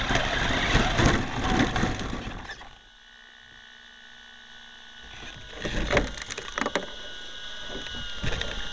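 Onboard sound of a Traxxas Slash RC truck clawing up a dirt hill: motor and tyres churning loose dirt and gravel, cutting out almost three seconds in as the truck stops partway up. After that a faint steady whine, with a few knocks and scrabbles of the truck on the dirt from about five seconds in.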